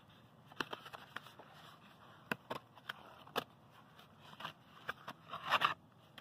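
A small cardboard box being handled by hand: a string of light clicks and scrapes, then a louder rustling scrape near the end as the Raspberry Pi 4 board is pulled out of it.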